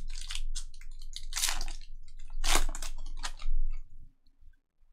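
Foil wrapper of a Topps Merlin Chrome trading-card pack being torn open and crinkled by hand, in a few short rustling bursts. The loudest burst comes about a second and a half in, and it goes quiet near the end.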